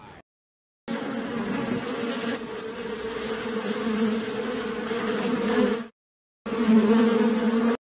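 Wasp buzzing: a steady low buzz from its beating wings, starting about a second in and running about five seconds, breaking off for half a second, then coming back for over a second more.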